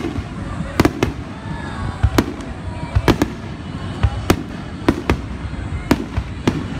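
Aerial firework shells bursting in quick succession: about a dozen sharp bangs at irregular spacing, some in close pairs.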